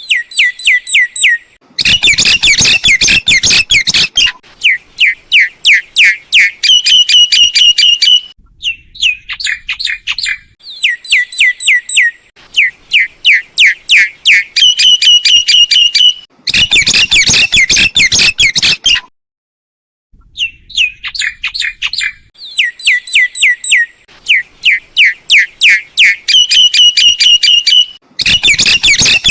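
Myna calling: runs of rapid, repeated whistled and chattering notes, broken three times by a harsh, noisy screech lasting about two seconds. The run of calls falls silent for about a second roughly two-thirds of the way through.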